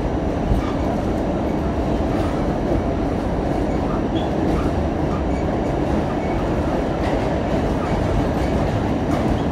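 New York City A-line express subway car running at speed, heard from inside the car: a steady, even rumble of wheels on the rails and the car body.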